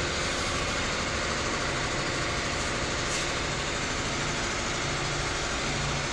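Steady, unchanging mechanical noise with a low hum, like machinery or an engine running in the background.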